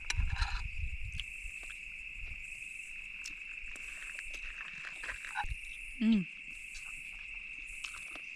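Steady high-pitched chirring of crickets or other night insects, with a fainter higher pulsing over it. About six seconds in, a short, low call with a falling pitch stands out above it.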